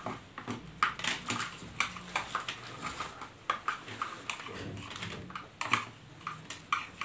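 Light, irregular clicks and taps of a small plastic bowl being tipped and knocked as chopped onion is emptied into a plastic bowl of puffed rice.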